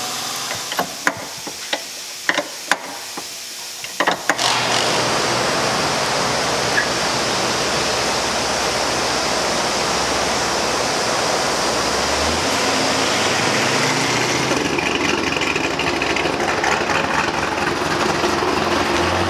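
Scattered metal clicks and knocks of hand work on a car's rear wheel hub. About four seconds in it gives way to a steady rush of wind noise with a vehicle engine running faintly underneath.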